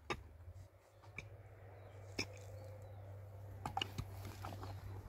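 Pickaxe and shovel digging into soil: a few sharp knocks and scrapes of metal blades striking earth and stones, including a quick double knock near the end, over a faint steady low hum.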